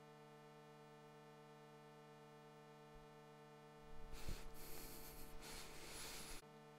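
A steady buzzing hum. About four seconds in, a loud rustling noise joins it for a couple of seconds and cuts off abruptly.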